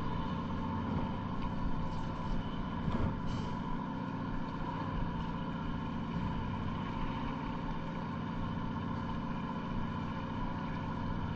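Fishing boat's engine running with a steady drone, several steady tones layered over a low hum.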